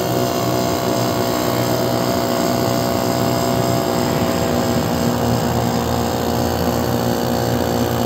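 Portable 12-volt air compressor running with a steady, even hum while it inflates a freshly patched tyre.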